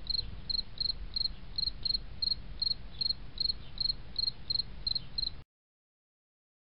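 A cricket chirping in a steady rhythm, about three short high chirps a second, over a low rumble. It cuts off suddenly about five seconds in.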